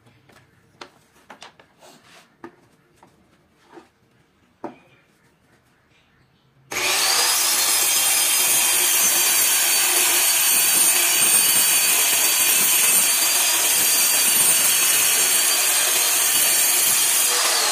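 A few light taps, then about seven seconds in a corded handheld circular saw starts abruptly and cuts steadily through laminated board for about ten seconds, a loud, even cutting noise with a high motor whine.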